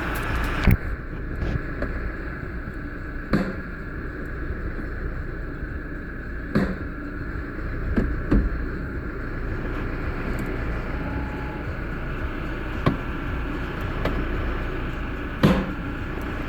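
Automatic transmission of a 2016 Toyota Hilux SR5 clunking: several sharp knocks at irregular spacing over the steady low rumble of the running vehicle. The clunks go with a gearbox that is hard to change gears and makes loud noises.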